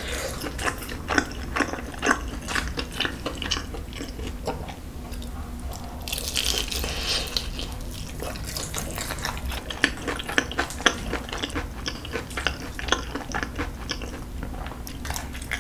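Close-miked eating: wet chewing and smacking mouth sounds, with a longer slurp of spicy stir-fried noodles about six seconds in that lasts roughly two seconds.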